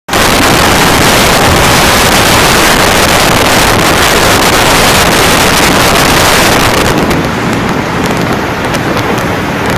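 Strong storm wind and driving rain, with heavy wind buffeting on the microphone. It eases slightly about seven seconds in, where sharp crackles come through.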